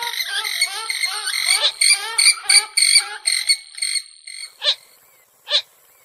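Purple gallinule calls: a fast, overlapping run of pitched calls that thins out about four seconds in into single sharp calls just under a second apart.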